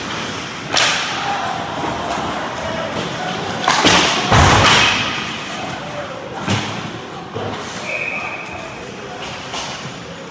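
Ice hockey play near the net: several hard thuds and bangs, with the loudest, longest crash a little before the middle, as of the puck and players hitting the boards and glass, over rink noise and voices.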